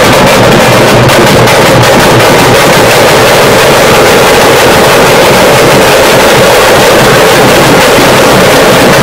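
Thappattam drumming: parai frame drums and a large barrel drum beaten together without pause. The recording is so loud that it is overloaded into a dense, distorted wall of noise in which the single strokes blur together.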